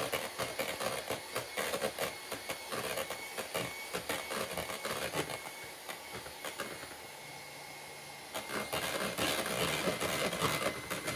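Moulinex electric hand mixer running steadily with a thin whine, its beaters whipping egg whites in a plastic bowl. It is beating them into meringue as hot caramelized sugar syrup is poured in. The sound drops quieter for a couple of seconds past the middle, then picks up again.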